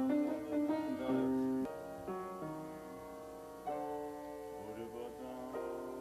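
Music: sustained keyboard chords that change about every two seconds.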